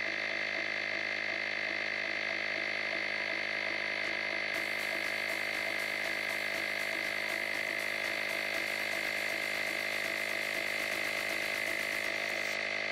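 Portable plug-in ZGZUXO tire air compressor running steadily, its small pump filling a motorcycle's front tire toward a preset 33 psi.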